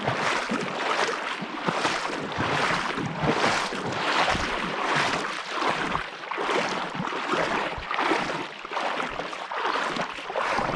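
Creek water rushing steadily, in a rough hiss that swells and eases.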